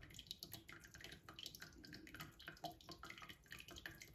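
Faint, irregular dripping and trickling as coffee runs through the grounds of an aluminum Kwik Drip dripolator and falls from the top reservoir into the pot below, with many quick, uneven drops.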